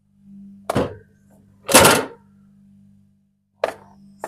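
Refrigerator being opened and a container of marinated meat taken out: a sharp click, a short louder clatter about two seconds in, and another click near the end, over a steady low hum.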